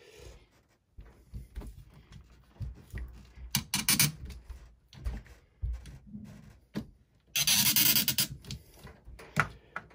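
Rubbing and scraping noises from hands working the wiring and hardware, with scattered knocks and a louder scrape lasting about a second, about seven and a half seconds in.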